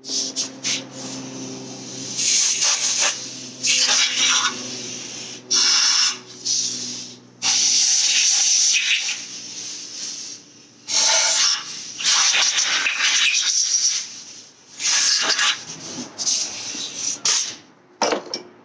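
Compressed air blowing out a freshly HeliCoiled bolt hole in an engine block, in repeated short hissing bursts.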